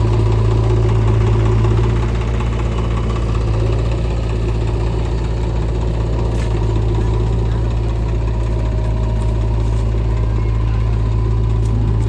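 Heavy diesel machinery engine running steadily with a deep, even hum, dipping slightly in level about two seconds in.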